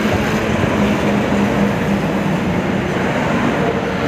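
Ten-wheel lorry in motion, heard from inside the cab: steady diesel engine hum with road and tyre noise.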